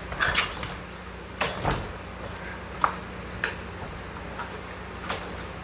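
Scattered knocks and clunks, about half a dozen, from working an older Honda small engine that is suspected of being locked up, over a steady low hum. The engine does not fire.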